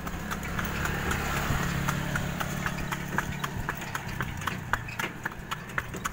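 Horse's hooves clip-clopping steadily on a concrete road as it pulls a two-wheeled cart, about three to four hoof strikes a second, over a low steady hum that fades after about four seconds.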